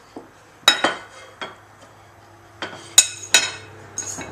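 A utensil clinking against a plate and dish as food is served: a series of sharp, irregular clinks with a short ring, in two clusters.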